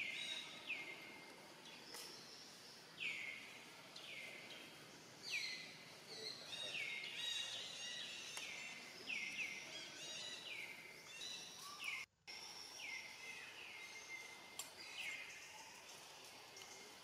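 Outdoor ambience of many short bird-like calls, each falling in pitch and then holding briefly, repeating and overlapping. The sound drops out for an instant about two-thirds of the way through.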